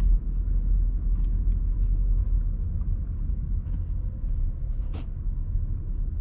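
Low, steady rumble inside a 2016 Honda Civic's cabin as it rolls slowly, from the engine and tyres, with a few faint clicks and one sharper click about five seconds in.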